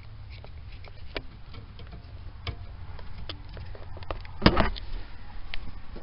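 Small plastic clicks and knocks from a handheld OBD-II scan tool and its cable connector being handled and plugged into the diagnostic port under the dash, with one louder knock about four and a half seconds in.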